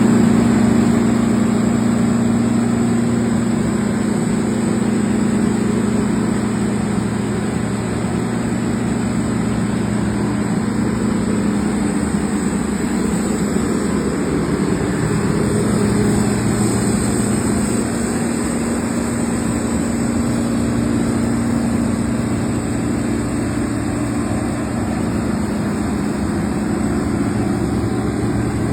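John Deere combine harvester running, a loud, steady engine drone with the noise of its machinery that holds constant throughout.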